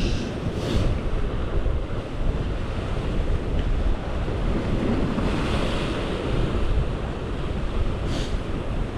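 Sea surf washing against the rocks, with wind rumbling on the microphone and a few brief hissing surges of white water.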